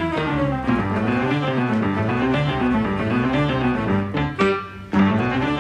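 Instrumental background music playing, with a short drop in level about four and a half seconds in.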